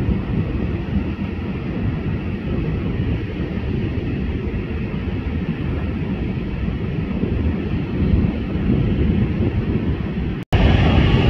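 Steady rumble of a taxiing British Airways Airbus A350's jet engines, mixed with wind buffeting the microphone. Near the end the sound cuts out for an instant and comes back louder.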